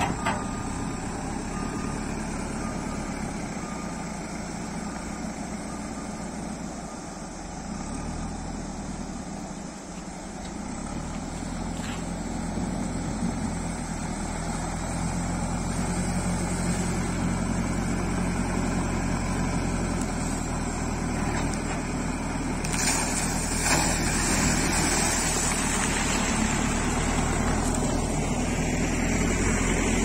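JCB 3CX backhoe loader's four-cylinder diesel engine running steadily while it drives and works in shallow water, growing louder in the second half, with water splashing and pouring around the machine.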